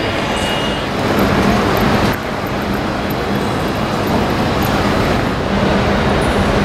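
Steady ambient din of a large railway station hall, with a low hum running under it; the level shifts a little about one and two seconds in.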